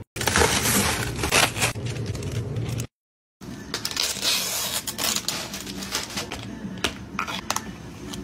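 Plastic packaging crinkling and rustling, with scattered sharp clicks of ice cubes knocking in a plastic cup, as a sealed cup of ice is opened and a drink pouch unsealed. Near the start comes a loud stretch of crinkling that cuts off suddenly, then a brief silence.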